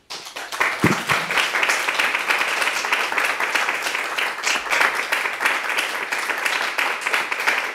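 Audience applauding: many hands clapping together, starting suddenly and going on steadily.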